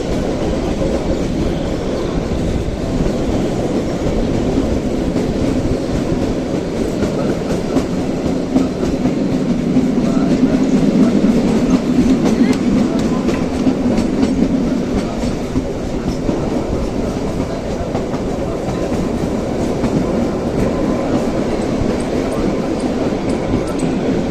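Kalka–Shimla narrow-gauge toy train running along the track: a steady rumble and clatter of wheels on rails, with a low hum that swells louder in the middle and eases off again.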